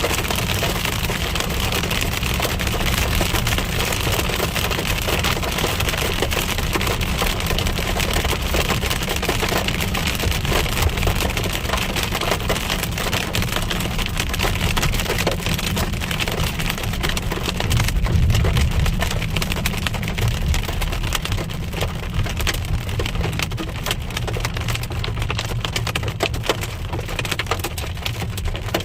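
Hail and heavy rain pelting a car, a dense, continuous patter of small impacts over the low rumble of the car driving, which swells briefly about two thirds of the way in.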